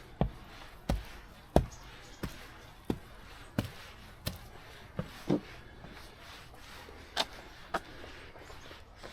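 Footsteps of a walker at a steady pace, about three steps every two seconds, with crisp thuds underfoot; they pause about five seconds in, then two more steps near the end.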